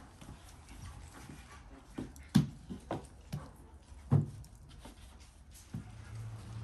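Several soft thuds as balls of yeast dough are set down and pressed on a floured wooden board, the two loudest about two and a half and four seconds in.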